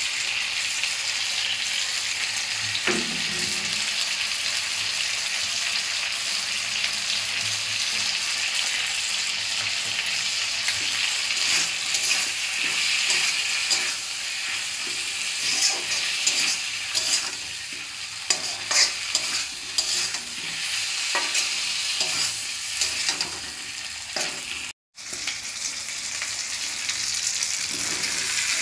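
Potato pieces and spices sizzling in hot mustard oil in a kadai, stirred and scraped with a spatula: a steady frying hiss broken by short scraping strokes against the pan. The sound drops out for a moment near the end.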